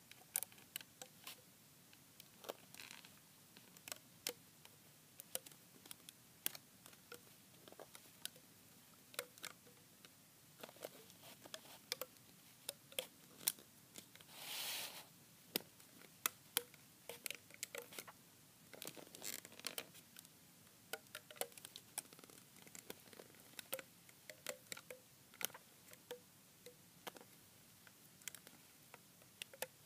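Faint, irregular small clicks and snaps of a plastic hook catching and pulling rubber bands over the pegs of a plastic Crazy Loom, with a couple of brief rustles.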